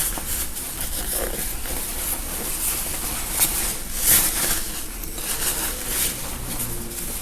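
Rustling of gown fabric being handled and cut, with short crisp clicks and snips scattered through, two of them sharper than the rest around the middle.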